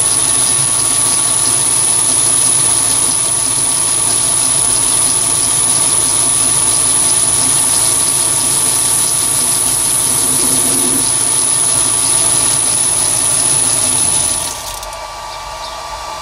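Chinese mini lathe, driven by a three-phase motor on a VFD through belt and cast-iron pulleys, running steadily with a high, steady whine over the motor's hum. Near the end the level drops, the high whine stops and the motor's pitch falls as the spindle runs down.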